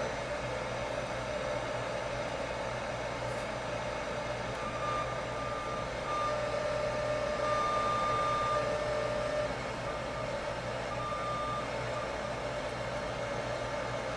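Steady static hiss from the Sharp 3T-57's small TV speaker with no station tuned in, over a low hum. A faint thin whistle comes and goes in the middle. The set is getting no signal, which the owner puts down to its broken antenna.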